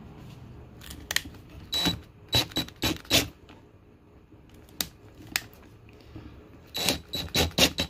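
DeWalt cordless drill driving a screw through a right-angle attachment in short trigger bursts: a run of quick pulses about two to three seconds in, and another near the end, with a high whine in each pulse and a few clicks between.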